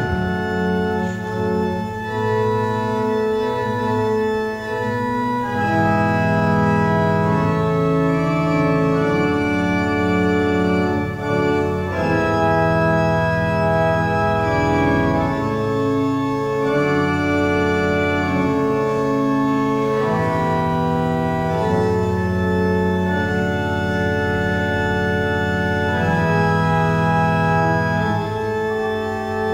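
Church organ played solo: slow, sustained chords that change every second or two.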